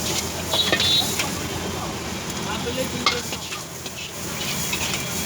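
Food sizzling in hot oil in a pan at a street food stall, with a metal utensil stirring and scraping and clinking sharply against the pan a few times.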